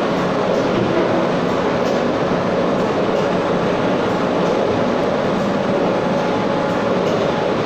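Automatic bottle filling line running: steady, loud machine noise with a continuous hum and light, irregular clatter of plastic bottles moving along the conveyor.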